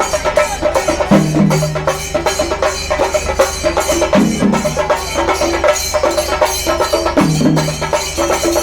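Music with fast, steady drumming and a low phrase repeating about every three seconds.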